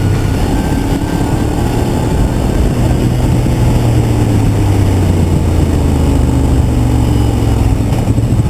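Ducati Diavel's L-twin engine running steadily, with only slight slow changes in pitch.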